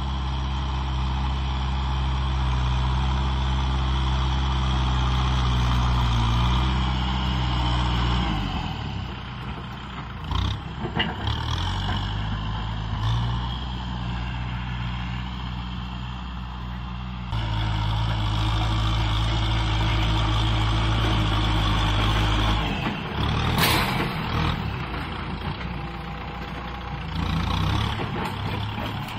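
Kubota M6040 SU tractor's four-cylinder diesel engine running under load as it pushes soil with its front blade, its note easing off and picking up again a few times. A single sharp knock late on.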